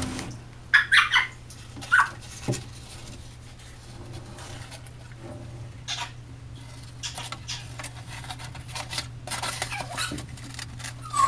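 A hand rummaging in a snake terrarium, brushing through plant leaves and bedding. A few sharp taps and knocks come in the first half, then a longer stretch of rustling.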